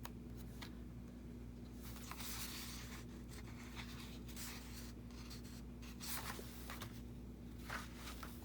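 Paper and card being handled: sheets rustling and sliding against each other in a few short bursts, with light ticks and taps, over a faint steady hum.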